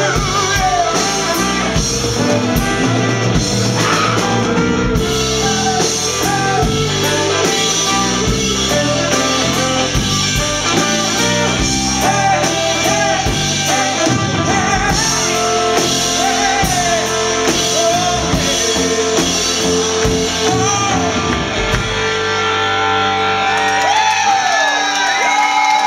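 A live band playing a song: electric guitar, bass and drum kit, with singing over them.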